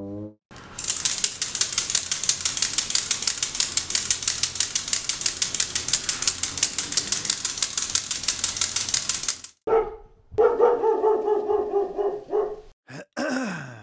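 Homemade onion rattle, an onion on a bamboo stick whirled round by hand, giving a harsh, rapid clatter for about nine seconds before stopping. After it comes a short pitched, wavering sound, then a quick falling tone near the end.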